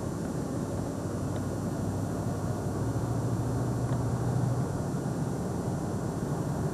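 A car's steady road and engine noise while driving, with a low, even hum and no sharp events.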